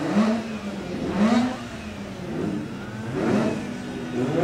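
Turbocharged Mazda 13B twin-rotor rotary engine idling and being blipped several times, each blip a quick rise and fall in pitch.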